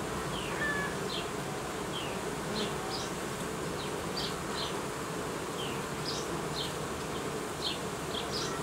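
Honeybee colony buzzing steadily from an open hive with its frames exposed.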